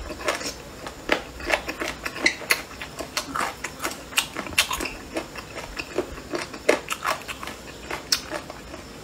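Close-up chewing of boneless chicken feet: irregular crunchy clicks, a few each second.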